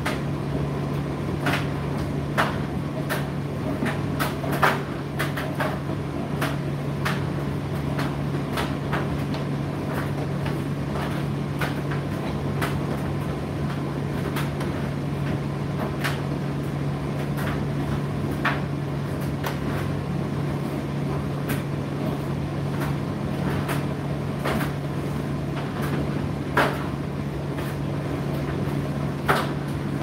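Indesit IDC8T3 condenser tumble dryer running: a steady motor hum with irregular light knocks and clicks from the load tumbling in the drum, a few of them louder.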